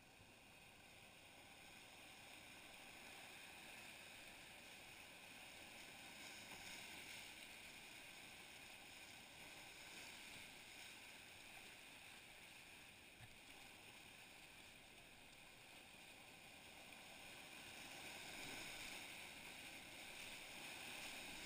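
Faint, even rush of river rapids, slowly growing louder near the end as the canoe nears a whitewater drop.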